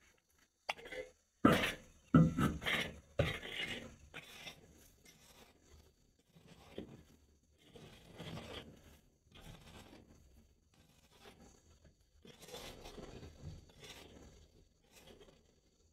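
A shovel scraping and scooping dirt and broken rubble off a floor. Several sharp knocks and crunches come in the first few seconds, then softer, irregular gritty scrapes.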